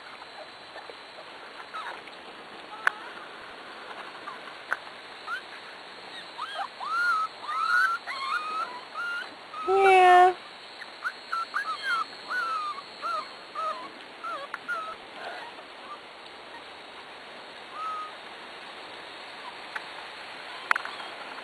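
Pembroke Welsh Corgi puppies whining and squeaking in a run of short high cries, with one louder yelp about ten seconds in.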